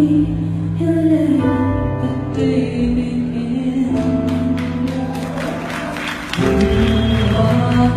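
A woman singing live with instrumental accompaniment, holding long sustained notes.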